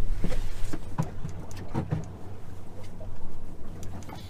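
A boat's motor running at low speed, a steady low hum. Several short knocks and rattles come in the first two seconds, then a few fainter clicks.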